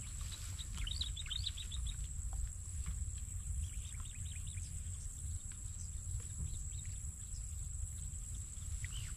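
Outdoor ambience: a steady low rumble of wind on the microphone, with small birds giving a quick run of short chirps about a second in and a few scattered chirps later. A thin, steady high-pitched hum runs underneath.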